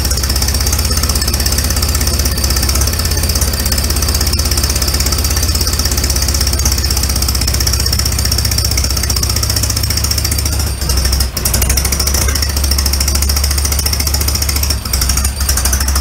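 Allis-Chalmers WD45 four-cylinder tractor engine idling steadily with a heavy, fast pulse, warming up after being started, with its spark plug wires in the wrong firing order. The level dips briefly twice in the latter part.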